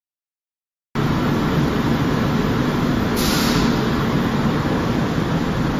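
About a second of silence, then the steady mechanical din of a running tumbler screening machine and the flour-mill machinery around it, with a short hiss about three seconds in.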